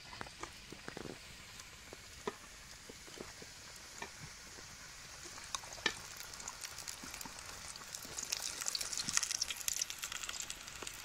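Dough cups on steel tumblers deep-frying in hot oil: a steady sizzle with scattered pops, growing louder and busier near the end as more cups go into the oil.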